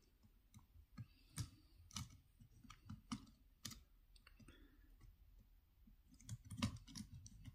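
Small screwdriver tightening a terminal screw on a plastic 5-pin socket, giving scattered faint clicks and ticks of metal on metal and plastic, followed near the end by a run of soft handling knocks.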